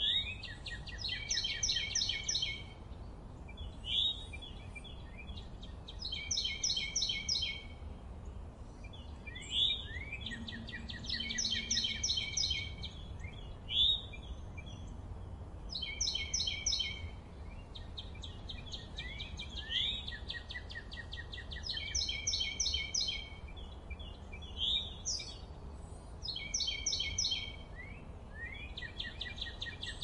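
Forest birdsong: a songbird repeats a short, rapid trilled phrase every three to four seconds, with single rising chirps between the phrases, over a faint low rumble.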